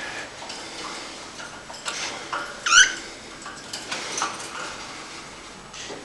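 Cockatiel giving one short, shrill chirp about three seconds in, a quick run of rising notes, among light clicks and rattles from the wire birdcage being handled.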